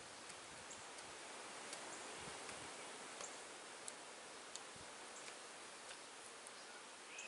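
Quiet outdoor background hiss with faint, scattered soft ticks.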